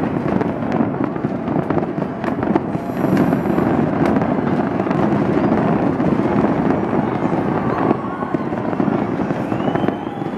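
Large aerial fireworks display: a dense, continuous run of bangs and crackling as many shells burst in quick succession.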